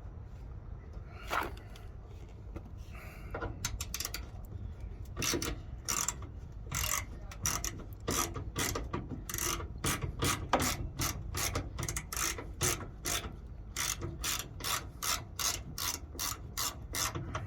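Hand ratchet driving a T15 Torx bit, clicking as it backs out two bolts: a few scattered clicks at first, then steady runs of about two to three clicks a second from about four seconds in.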